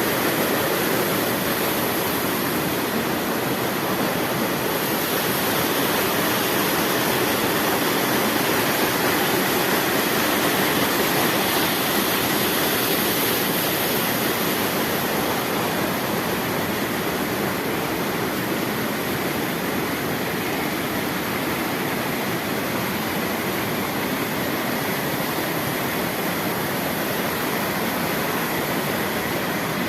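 Waterfall on a river, a steady, unbroken rush of falling water.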